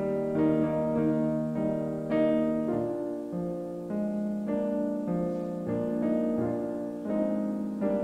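Piano playing a slow offertory piece of chords and melody, with new notes struck every half second to a second and left ringing.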